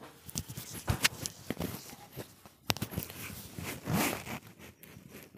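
Rustling and handling noise with many irregular sharp clicks and knocks from a person moving about close to the microphone, and a longer rustle about four seconds in.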